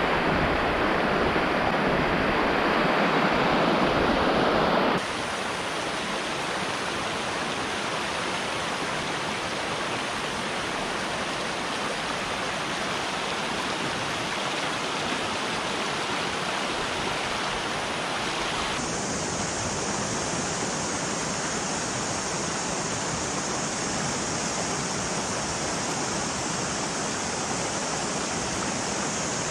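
Shallow mountain stream rushing over a stony riffle, a steady wash of water. It is louder and deeper for the first five seconds, then drops suddenly to a lighter, hissier rush.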